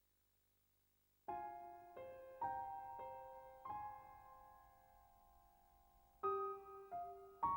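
Slow, quiet solo piano music. After about a second of near silence, single notes and chords are struck a few at a time, each left to ring and fade.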